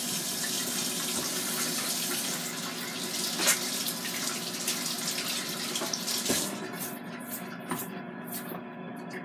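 Water running from a kitchen tap, shut off about six and a half seconds in with a click, leaving a few scattered drips and splashes.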